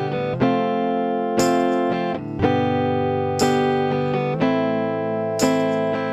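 Guitar strumming chords of a song's accompaniment without vocals: a strong strum about every two seconds with lighter strokes between, the chord changing every couple of seconds.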